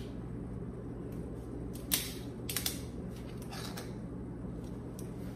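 Short creaks and clicks of a sparkling wine bottle being worked open, a few separate sharp sounds over a low steady hum.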